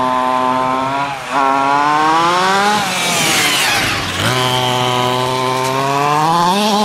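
Himoto 1:5-scale RC monster truck's two-stroke petrol engine revving hard as the truck drives, its pitch climbing under throttle, dipping briefly about a second in, falling away roughly midway, then climbing again.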